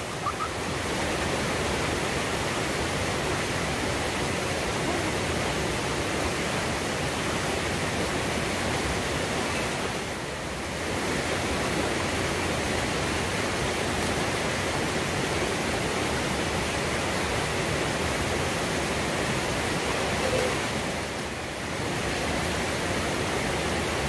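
Mountain stream rushing over rocky cascades: a steady, even rush of water, briefly softer twice.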